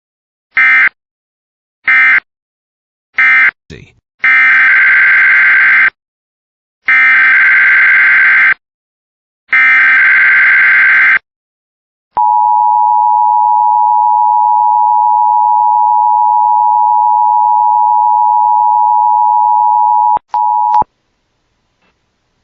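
Emergency Alert System tones: three short bursts of SAME digital data chirps, then three longer SAME header bursts about a second apart. These are followed by a steady attention-signal tone held about eight seconds, which cuts off suddenly with a short blip after it.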